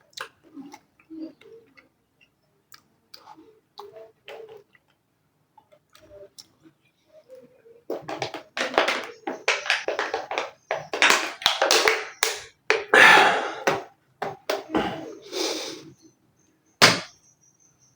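Close-miked eating of a chicken shami burger: soft mouth clicks and small chewing sounds, then a run of loud crackling and rustling bites from about halfway through, ending with a single sharp click.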